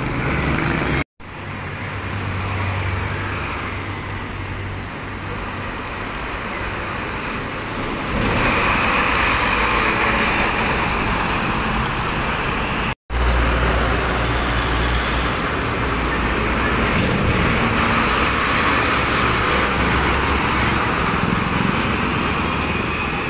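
Road traffic led by heavy dump trucks pulling away, with a steady low diesel engine drone and tyre and road noise. The sound drops out twice for an instant.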